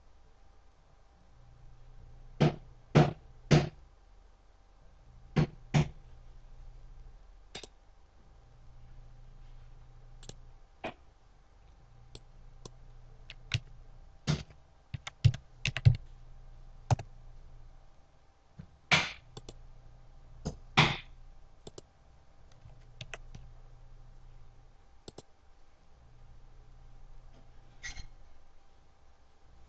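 Scattered clicks of a computer mouse and keyboard keys, some in quick runs of two or three, over a faint low hum that comes and goes.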